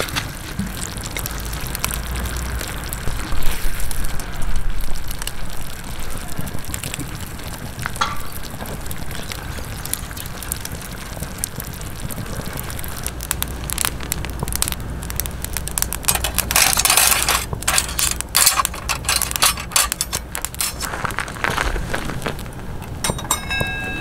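Wood campfire crackling under an iron frying pan while the hamburger stew simmers and bubbles in its sauce: a steady hiss with many small sharp crackles, which come thickest about two-thirds of the way through.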